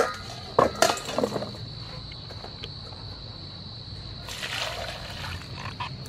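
Vegetables dropped into a steel bowl with a few knocks, then, about four seconds in, water poured over them from a plastic bowl, sloshing and splashing as the hands start washing them.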